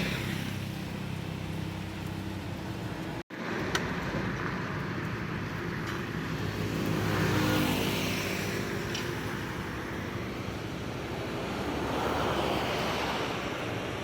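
Road traffic: vehicles passing one after another, swelling and fading every few seconds, with a momentary dropout to silence about three seconds in.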